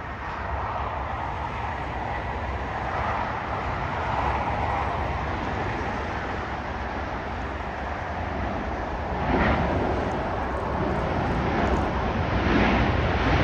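Airbus A320 jetliner landing and rolling out: a steady rushing jet-engine and airflow noise, with a brief surge about nine seconds in, growing louder toward the end.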